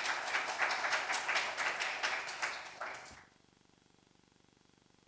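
Audience applauding, the clapping dying away about three seconds in, leaving faint room tone.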